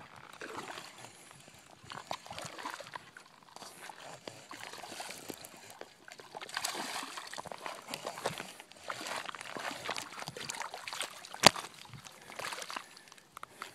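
Shallow water splashing and sloshing over stones as a hooked smallmouth bass is brought into the shore, with scattered small clicks and knocks. One sharp knock late on is the loudest sound.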